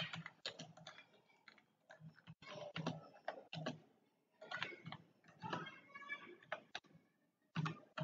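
Computer keyboard typing in short, irregular bursts of key clicks.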